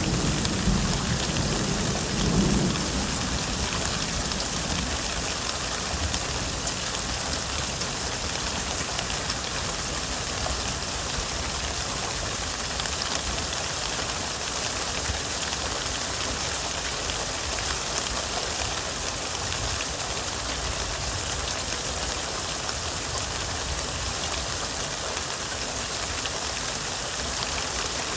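Steady heavy rain falling, with the last of a low thunder rumble dying away in the first few seconds.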